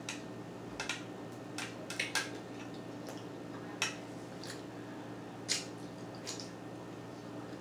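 Knife and fork clinking and scraping on a plate while cutting a pork chop: scattered light clicks over a faint steady hum.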